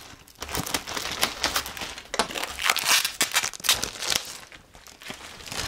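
Clear plastic wrapping on a new wooden serving tray crinkling and crackling as the tray is handled, in irregular bursts that are densest in the middle.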